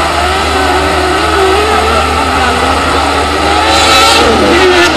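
Autocross race car engines revving on a dirt circuit, the pitch rising and falling as the cars accelerate and lift through the turns. A louder rush of noise comes about four seconds in, over a steady low hum.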